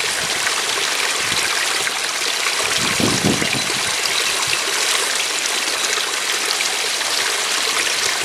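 Steady rushing hiss of flowing river water, with a brief low disturbance about three seconds in.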